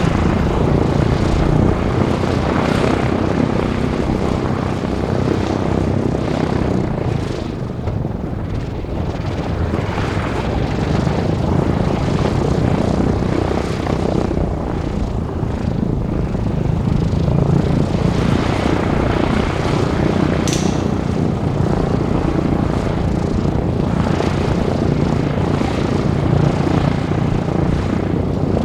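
Boeing B-17G Flying Fortress's Wright R-1820 Cyclone radial engines running with a steady, loud propeller drone.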